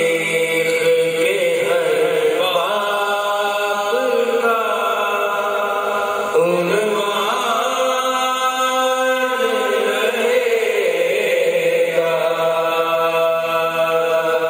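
Men's voices chanting an Urdu nauha, a Shia lament, unaccompanied, in long drawn-out melodic lines with notes held for a second or more and sliding between pitches.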